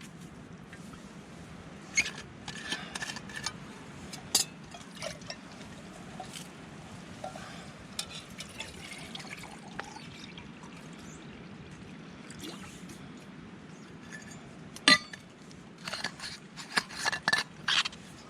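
Water poured into a camping pot, mixed with clinks and knocks of camp cookware being handled, as a brew is set up.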